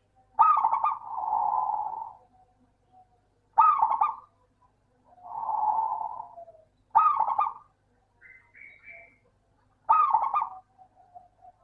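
Zebra dove (perkutut) singing: four repeated phrases about three seconds apart, each a quick stuttering run of notes, with two softer, longer coos between the first three phrases.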